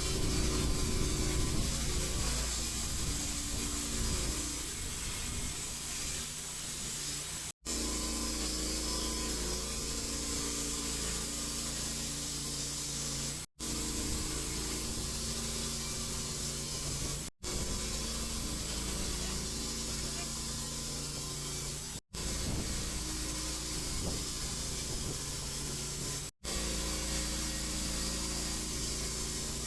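Engine of a TimberKing band sawmill running steadily while the blade cuts through a pine log. It comes as a run of short stretches, each broken off by a brief silent gap every four to six seconds.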